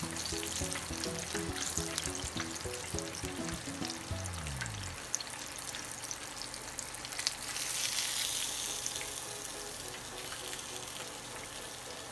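Tilapia fillet frying in a pan of hot oil: a steady sizzle and crackle that swells about eight seconds in. Background music plays over the first four seconds and ends on a falling tone.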